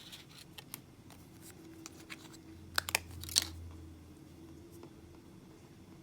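Small plastic packaging being handled: light crinkles and scattered ticks, with three sharp plastic clicks close together about three seconds in.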